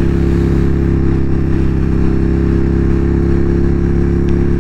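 Motorcycle engine running at a steady cruise, its pitch unchanging, under a steady rush of wind noise.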